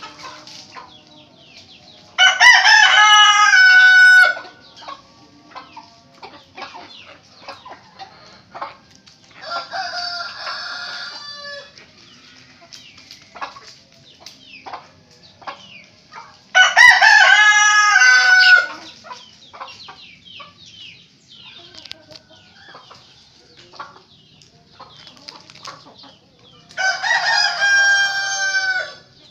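Roosters crowing in turn, answering one another: four crows of about two seconds each, spaced several seconds apart, the second and fourth fainter than the others. Soft short clucks come in the gaps between crows.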